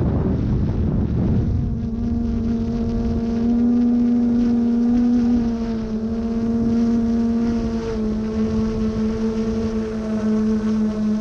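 Quadcopter drone propellers humming steadily, the pitch wavering and shifting slightly as the drone holds and adjusts in the wind, with wind buffeting the microphone.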